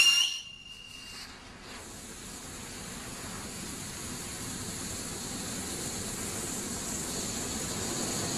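Brothers Krazy Klock firework display fountain combination: a falling whistle cuts off in the first second. Then its ring of coloured fountains burns with a steady rushing hiss that slowly grows louder.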